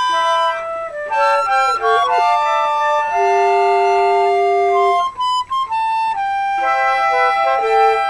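Four concert flutes playing together in harmony, mostly held notes moving from chord to chord, with a few short detached notes a little past halfway.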